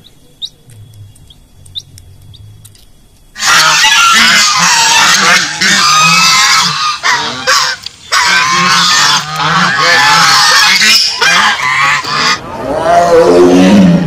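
Faint chick peeps, then from about three seconds in a flock of white domestic geese honks loudly and continuously. Near the end the geese give way to a tiger's call falling in pitch.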